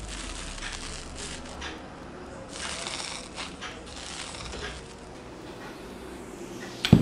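Crunchy slime crackling and popping as fingers press and knead it in a glass bowl. Near the end come two sharp knocks of a glass bowl set down on a wooden table.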